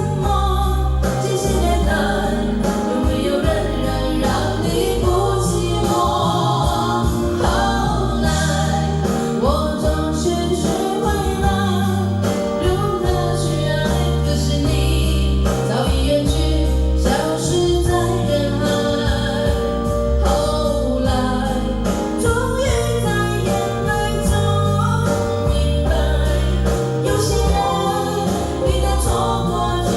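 Singing over a karaoke backing track, a sung melody with a strong, steady bass line playing loudly throughout.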